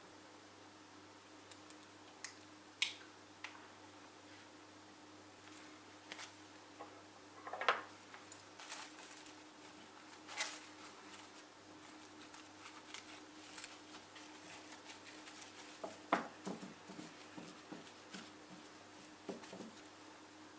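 Quiet kitchen handling over a faint steady hum: scattered light clicks, taps and small knocks of a silicone spatula, ceramic saucepan and glass bowl, with cling film crinkling as it is pressed by hand onto custard.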